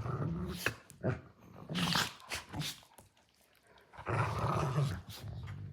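Two dogs play-fighting: low play growls in three stretches, with short, sharp sneezes between them. These are play sneezes, the sign that the roughhousing is friendly.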